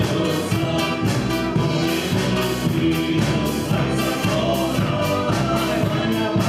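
Live band music with a drum kit keeping a steady beat.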